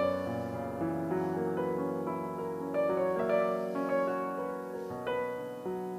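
Slow piano music: held notes and chords, a new one coming in every second or so.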